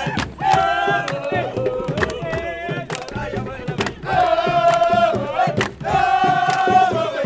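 A group of voices chanting in unison in held, sung phrases of one to two seconds each, with sharp hits between the phrases.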